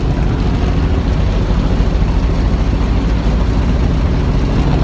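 Helicopter engine and rotor running: a steady, loud low drone.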